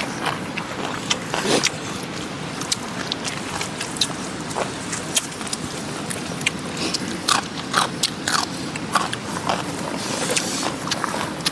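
Irregular crunches and scraping clicks, as of someone biting and chewing crunchy food, over a steady background hiss.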